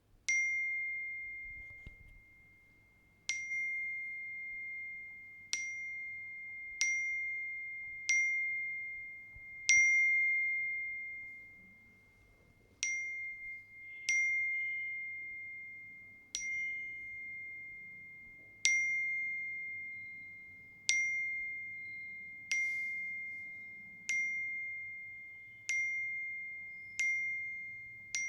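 iPhone WhatsApp default message notification tone: a single bright chime that rings out and fades, repeated about fifteen times at uneven gaps of one to three seconds.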